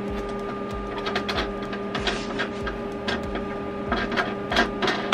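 Irregular clicks and scrapes of hands pulling out packing pieces inside a Glowforge Pro laser cutter, busiest near the end, over a steady hum.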